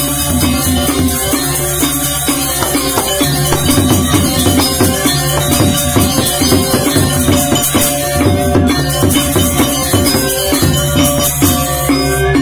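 Balinese gamelan gong ensemble playing: bronze metallophones ring a fast, repeating interlocking pattern over deep sustained gong tones, with a steady high metallic jingle on top.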